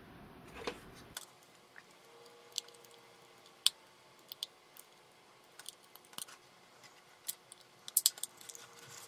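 Scattered small clicks and scrapes as the casing of a Britz 2.1-channel speaker set's wired volume-control puck is pried apart by hand, with a few quick clicks together near the end.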